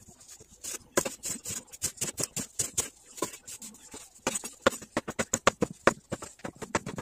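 Kitchen knife slicing shiitake mushrooms on a wooden cutting board, sped up to double speed. The blade knocks the board in a rapid run of sharp taps that gets quicker and louder about four seconds in.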